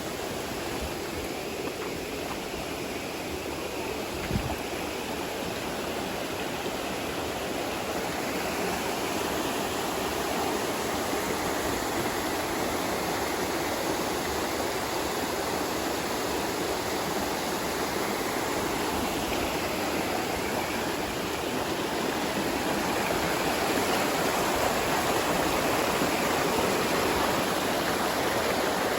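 Steady rush of flowing water from a stream or small waterfall, growing a little louder toward the end, with a brief low thump about four seconds in.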